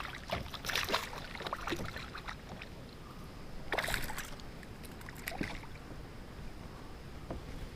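Water splashing and light knocks around a kayak on a moving river, a few sharp sounds at irregular spacing, the loudest about four seconds in.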